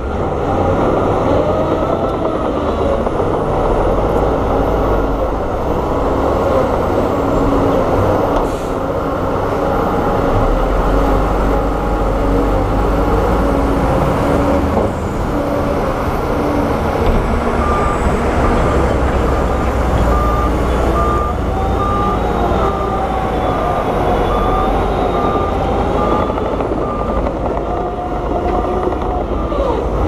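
Heavy diesel earthmoving machinery running steadily under load, its engine pitch shifting up and down. A little past halfway, an evenly repeated beep starts and runs on.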